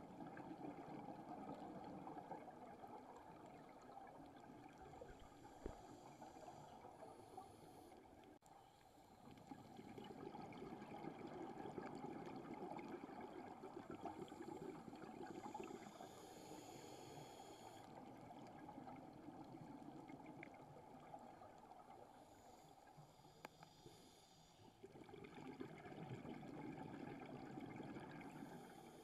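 Faint, muffled underwater sound heard through a camera's waterproof housing: a low, steady rush of water that swells and dips, with soft hissing patches every several seconds.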